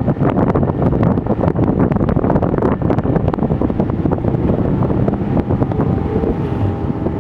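Heavy wind buffeting on the microphone of a camera in a moving car, over a low drone of engines and tyres on the track. A faint engine note comes through about six seconds in.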